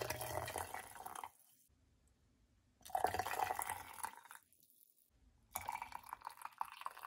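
Chicken broth poured from a ladle through a plastic canning funnel into a glass mason jar: three ladlefuls in turn, each a short splashing pour.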